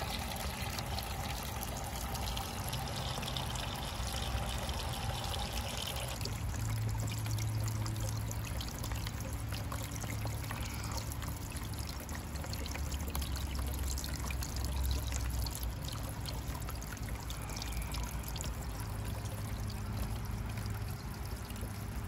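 Bird-bath fountain running: water from a bell-shaped spray nozzle splashing and trickling steadily back into a shallow basin of rocks.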